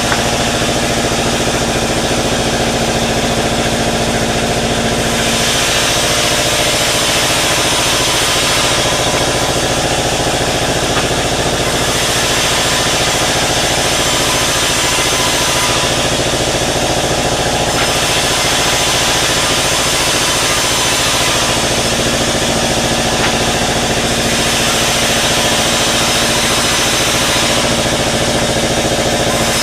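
Sawmill running steadily under engine power while sawing waru wood into battens. Its sound brightens and eases every few seconds as the cutting goes on.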